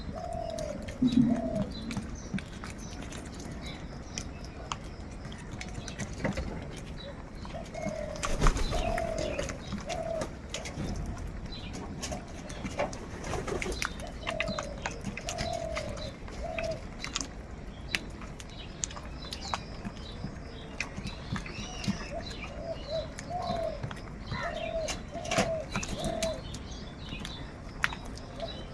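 Birds calling: a low, mellow phrase of two or three notes repeated every few seconds, with scattered chirps and sharp clicks in between.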